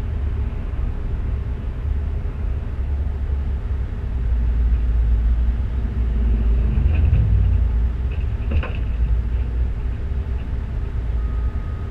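Low, steady engine rumble heard from inside a stopped pickup truck's cab, with a couple of faint clicks in the second half.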